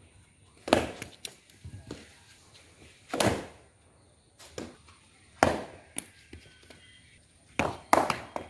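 Cricket bat striking a leather cricket ball: sharp knocks about every two seconds, the last two close together near the end, with lighter taps between them.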